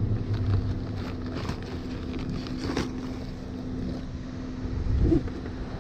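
Cardboard beer four-pack and nylon backpack being handled, with faint rustles and light clicks over a steady low rumble and wind on the microphone. A louder low thump comes about five seconds in.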